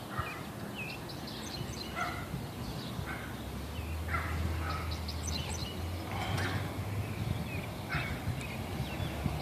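Several birds calling and chirping, with short rapid runs of high notes. A low steady hum comes in about three seconds in.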